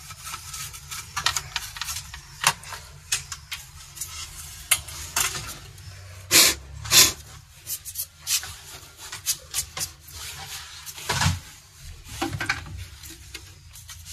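Brush scrubbing a laptop motherboard, then the board and the new plastic bottom case being handled and fitted together, with scattered light clicks, knocks and rubbing. A few louder rubbing strokes stand out about six, seven and eleven seconds in.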